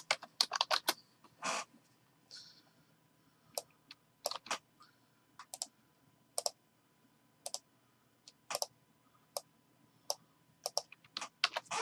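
Computer keyboard and mouse in use: scattered single clicks at irregular intervals, about one a second, with a few quick pairs.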